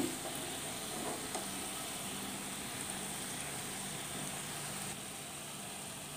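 Soya-spinach koftas deep-frying in hot oil in a small pan: a steady sizzle of bubbling oil, dropping slightly in level about five seconds in.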